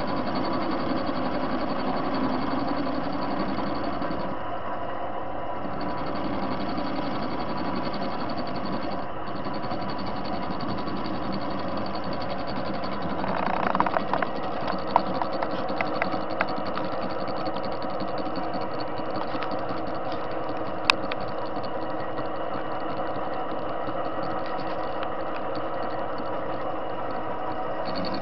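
TV-16 metal lathe running steadily, its motor and gearing humming with several steady tones while a cutting tool takes a turning pass across the face of a corroded steel washer. About 13 to 16 seconds in, a louder, rougher stretch with several sharp clicks; one more sharp click about 21 seconds in.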